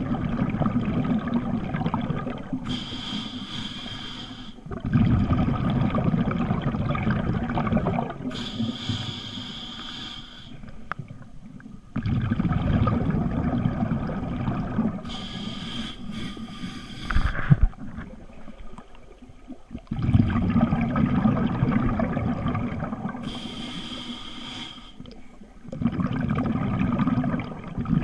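Scuba diver breathing through a regulator underwater in a steady cycle about every seven to eight seconds: a short hiss on each inhalation, then a longer stretch of exhaled bubbles rumbling and gurgling. A single sharp knock sounds partway through.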